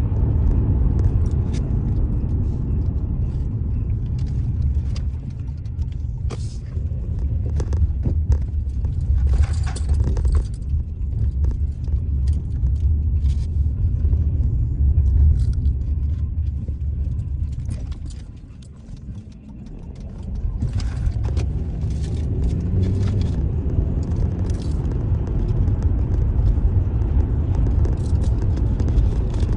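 Steady low road and engine rumble heard from inside a moving car's cabin, with scattered light clicks and rattles. About two-thirds of the way through, the rumble fades briefly and then builds again.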